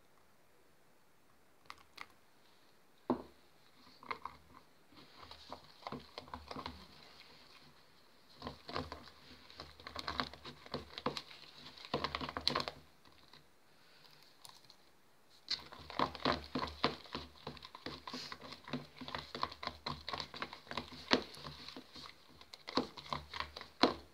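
Slime mixture being stirred in a plastic bowl as acetone activator is worked in: rapid wet clicking and crackling, in two long spells with a short pause a little past halfway. A single knock sounds about three seconds in.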